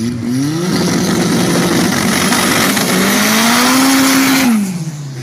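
Turbocharged race car engine revving hard in a burnout, its pitch climbing and held high under a dense hiss. The throttle is cut near the end and the revs fall away.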